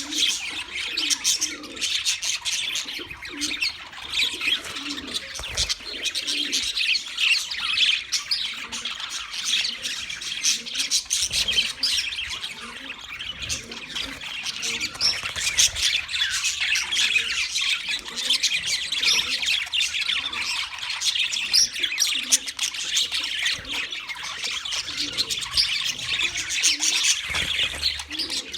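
A flock of budgerigars chattering: many short, high chirps and warbles overlapping in a dense, continuous stream, with softer lower notes repeating underneath.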